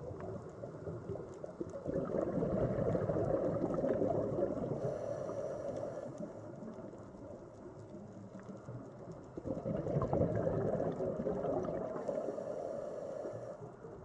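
Scuba diver breathing through a regulator underwater: two long bursts of gurgling exhaled bubbles, about seven seconds apart.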